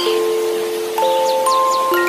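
Slow lullaby of soft, bell-like held notes entering one after another over a steady hiss of white noise. A few quick high chirps come in about three-quarters of the way through.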